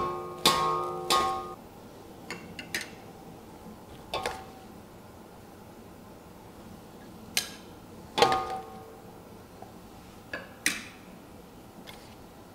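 Salad servers knocking and clinking against a serving bowl as a salad is tossed. There are three ringing strikes in the first second and a half and another about eight seconds in, with lighter clicks in between.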